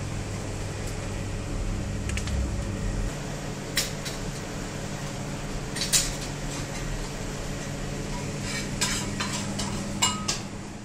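Stainless steel serving trays and a metal spoon clinking as a meal is plated, a few separate knocks and clinks over a steady low hum.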